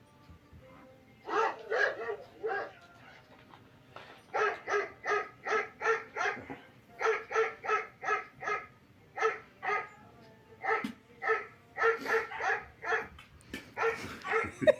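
Dog barking in quick, regular runs of about three barks a second, with short pauses between the runs.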